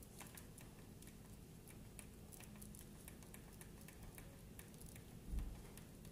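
Faint, irregular clicks of remote-control buttons being pressed one after another, with one low thump a little over five seconds in.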